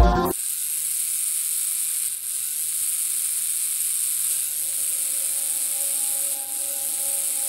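Steady high hiss over a faint low electric buzz that dips briefly about every two seconds, with faint held tones entering about halfway through.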